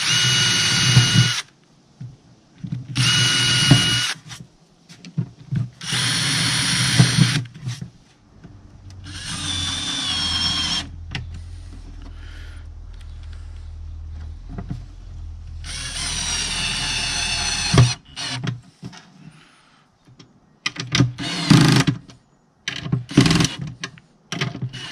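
Cordless drill running in five bursts of one to two seconds each, boring pilot holes into plywood for a brass piano hinge's screws. Near the end come quicker short pulses and clicks as the screws are driven.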